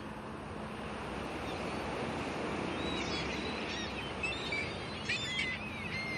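Gentle sea surf washing on a sandy beach, with small birds chirping several times in the second half.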